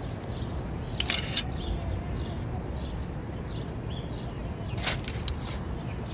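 A steady low rumble, with short bursts of hiss about a second in and again near the end, and faint high chirps.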